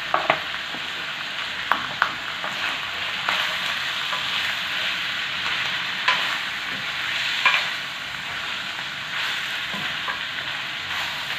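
Boiled pork leg pieces with onion and garlic sizzling steadily in a frying pan as they are stirred with a spatula. The utensil makes a few sharp clicks and scrapes against the pan.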